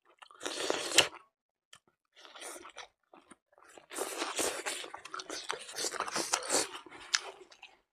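Close-miked chewing of a mouthful of rice and buffalo innards curry: wet mouth and chewing sounds in bursts, with a short bout about half a second in, another near the middle, and a longer dense stretch through the second half.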